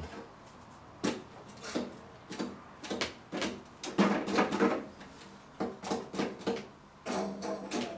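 Hand knocking, tapping and rubbing on the wooden body of an acoustic guitar, played as a percussion instrument: irregular sharp knocks and short scrapes, each leaving the body ringing briefly. From about seven seconds in the knocks come closer together and the ringing holds.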